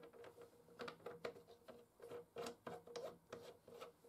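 Small threaded metal cap being screwed by hand into the port on a welded steel lathe spindle housing: a string of faint, irregular metal clicks and scrapes.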